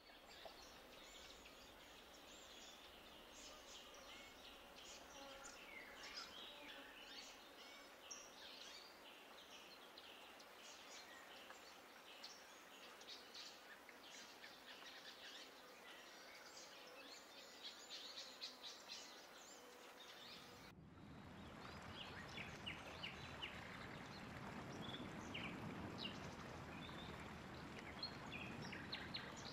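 Faint chorus of many small songbirds chirping and singing in a spring woodland. About twenty seconds in the sound cuts abruptly to a steady rushing noise, with scattered bird calls over it.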